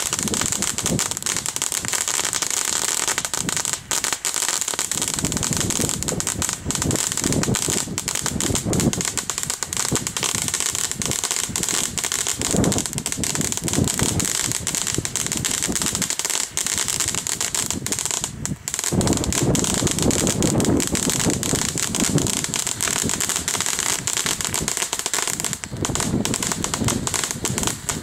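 Consumer ground fountain firework spraying, with a continuous dense crackle of rapid pops over a hiss and a brief lull about two-thirds of the way through.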